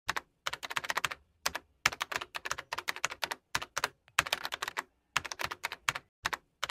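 Computer keyboard typing, in runs of rapid keystrokes broken by short pauses.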